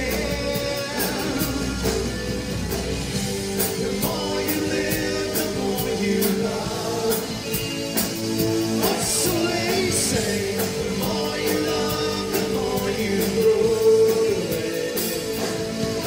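Live synth-pop band playing: sustained synthesizer chords over bass guitar and a steady drum beat with cymbals, with a male voice singing.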